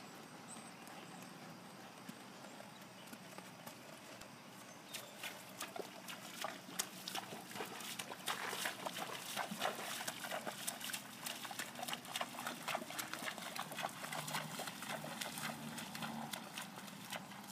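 Hoofbeats of a quarter horse clip-clopping on a paved drive. They come up out of a faint background hiss about five seconds in, are loudest and densest midway, then ease off toward the end.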